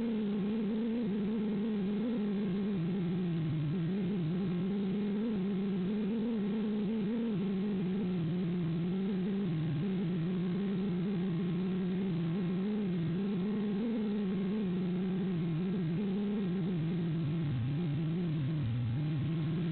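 Eachine Lizard95 micro racing quadcopter's brushless motors buzzing in flight, the pitch wavering up and down continuously with the throttle and dropping a little near the end.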